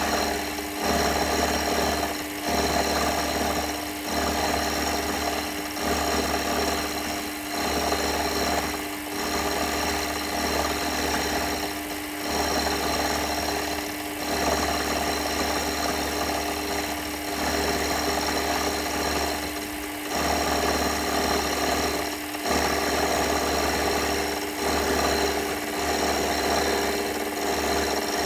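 Workshop machine tool running with a steady motor hum and a low throb, machining metal. The sound dips briefly every two seconds or so.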